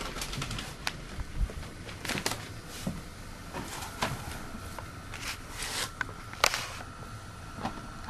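Camcorder handling noise and scattered knocks and clicks as the camera is carried indoors, with footsteps. A faint steady high whine comes in about halfway through.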